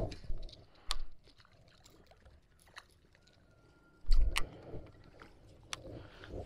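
Scattered sharp clicks and low thuds of gear being handled in a fishing boat, with quiet stretches between; the heaviest thud comes about four seconds in.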